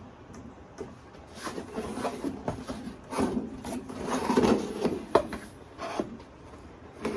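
Hands working on a handmade craft piece: irregular rubbing and scraping with light taps and clicks, busiest in the middle, with one sharper click a little after five seconds.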